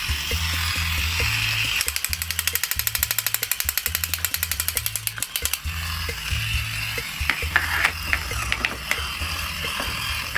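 Background music with a repeating bassline. From about two to five and a half seconds in, a fast, even run of ratchet-like clicks plays over it, and a few scattered clicks follow later.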